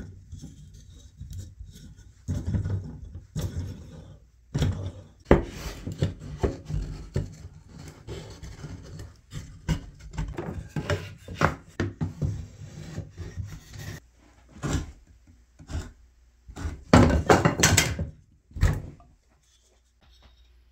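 Wooden board levering and rubbing against a Moen shower valve cartridge stem to pry the cartridge out of the valve body: irregular wooden scraping, creaking and knocks. The sounds are loudest in a burst a few seconds before the end, after which the cartridge is out.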